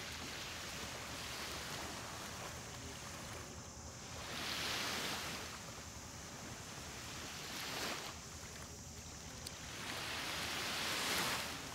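Small waves washing onto a sandy shore, each wash swelling and fading every few seconds, the loudest one near the end.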